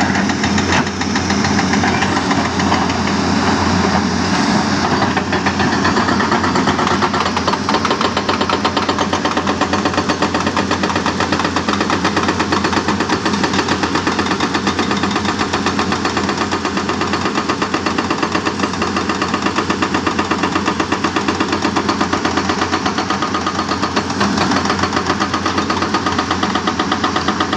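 Excavator-mounted hydraulic rock breaker hammering hard rock: a rapid, even train of blows over the excavator's running diesel engine, settling into a steady rhythm a few seconds in.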